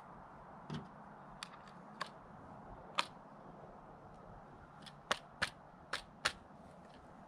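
Small, sharp metallic clicks and taps of a Browning Maxus semi-auto shotgun's parts as the trigger-group pins are pushed into the receiver during reassembly. They come singly and spaced apart, the sharpest about three seconds in, then a quick run of four near the end.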